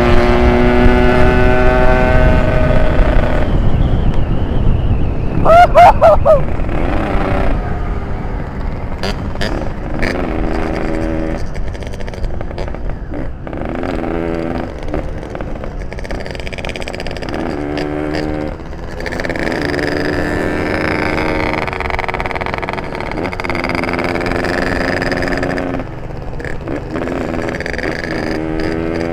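Ported Yamaha RX-King's two-stroke single-cylinder engine revving hard under way, its pitch climbing and dropping with each throttle and gear change. It is loudest in the first few seconds, with a sharp rising rev about six seconds in, then quieter.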